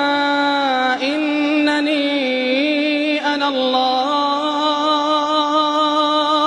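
Quran recitation in a melodic tajweed style: one voice holding long, ornamented notes that waver slowly in pitch, drawing the word 'innanī' out over several seconds.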